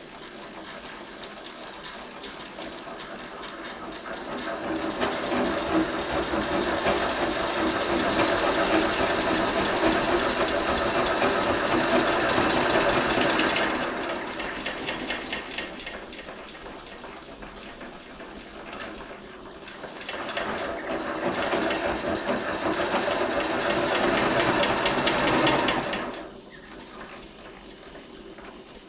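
Stuart Beam model steam engine running fast and driving a pencil sharpener: a rapid mechanical clatter with steam hiss. It swells into two long loud stretches and drops away abruptly near the end.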